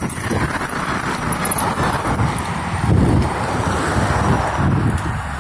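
Wind buffeting the phone's microphone while riding a bicycle, a steady rumbling noise.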